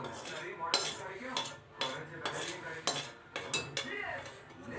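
Metal spoon clinking and scraping against a metal pan in uneven strokes as roasted vermicelli is stirred into simmering milk.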